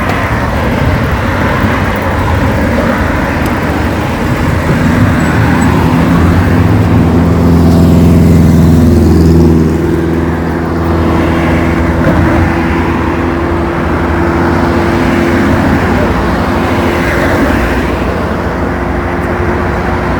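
Road traffic: a motor vehicle's engine passes close, loudest about eight to nine seconds in, its pitch dropping as it goes by, over a steady wash of traffic noise.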